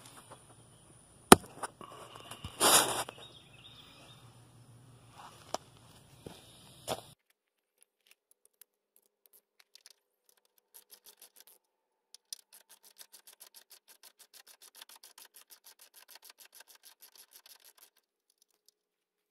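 A sharp knock and some brief clatter of handling. After that, a ratchet wrench clicks in a long, quick, even run of faint ticks as a nut on the front radiator support bracket is turned.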